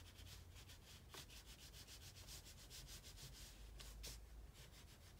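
Faint scratchy rubbing of an oil pastel stick scribbled rapidly back and forth on paper to colour in a small shape, several strokes a second.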